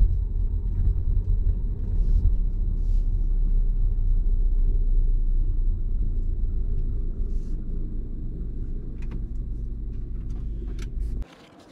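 Low, steady rumble of a car's engine and tyres heard from inside the cabin as it rolls slowly. It eases off a little and then cuts off abruptly shortly before the end.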